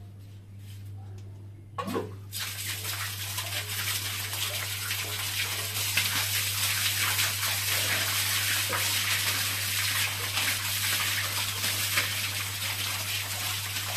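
Water from a borewell submersible pump pouring out of the open delivery pipe and splashing onto a concrete floor. It starts with a sudden spurt about two seconds in as the water reaches the outlet after the pump is switched on, then runs steadily, with hands splashing in the stream.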